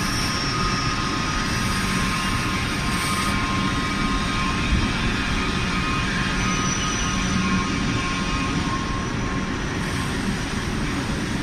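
CNC stretch bending machine running: a steady, even mechanical noise with a few faint high tones through it.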